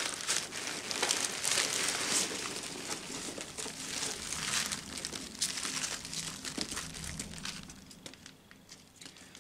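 Foam packing peanuts and clear plastic wrapping being rummaged through by hand in a cardboard box: a dense crinkling and rustling with many small crackles that fades out over the last couple of seconds.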